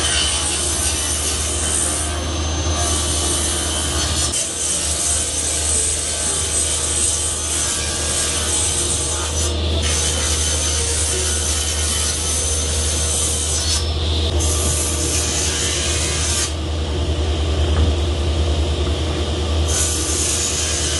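Sliding table saw running and cutting through an 18 mm radiata pine laminated panel: a steady low hum under a continuous hiss of the blade in the wood. The high hiss thins out briefly a few times.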